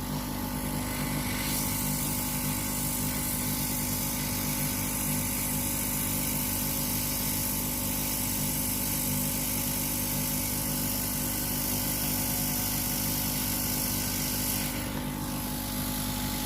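Hot-air SMD rework station blowing steadily: a motor hum with a rush of air that grows louder from about a second and a half in and drops back near the end. It is heating the board to melt the solder on a phone's charging jack so the jack can be pulled off.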